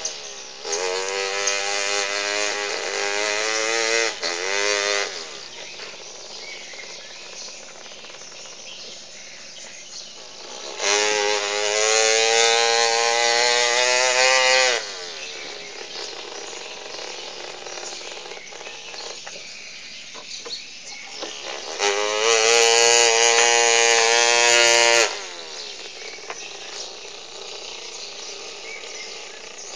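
A small child imitating a chainsaw with the voice: three buzzing bursts of a few seconds each, the pitch bending up and down like the saw being revved. The second and third bursts are the loudest.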